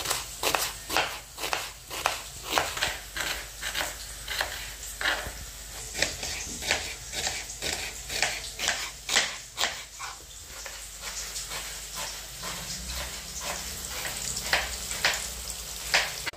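Knife slicing a red onion on a wooden cutting board, steady strokes about three a second. After about ten seconds the strokes thin out and the steady sizzle of onion slices deep-frying in oil comes through.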